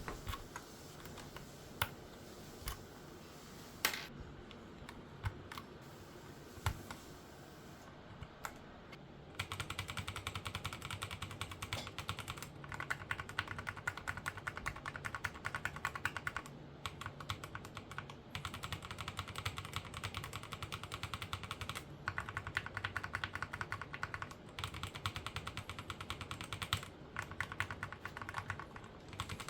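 Typing on an Epomaker TH80-X mechanical keyboard fitted with a mix of Epomaker Flamingo and Gateron Black switches. A few single keystrokes for the first several seconds, then fast continuous typing from about nine seconds in, broken by a few short pauses.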